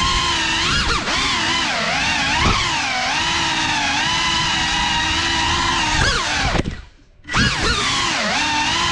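FPV quadcopter's brushless motors and propellers whining, the pitch rising and falling with the throttle. About seven seconds in, the motors cut almost to silence for a moment, then spool back up.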